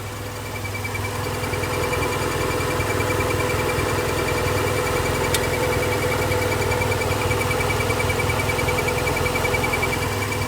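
Toyota MR2's 3S-GTE turbo engine idling, with a fast, even, high-pitched chirping coming from the clutch and E153 transmission, and a single click about five seconds in. This chirp at idle is the kind that a dry clutch release fork pivot and linkage joints are said to make.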